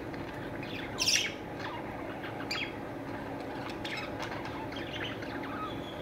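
Many birds chirping, short calls overlapping throughout, with one louder, noisier burst about a second in.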